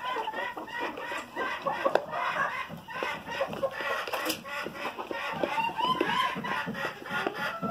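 A flock of hens clucking and calling over one another while feeding, many short overlapping calls. A few sharp taps come through, from beaks pecking at feed in a plastic pan.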